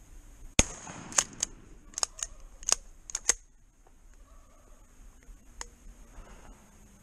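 A single shotgun blast about half a second in, followed over the next three seconds by a string of sharp metallic clicks and clacks.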